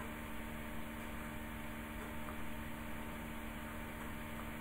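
Steady low electrical hum under an even hiss: the background noise of the recording setup, with no speech.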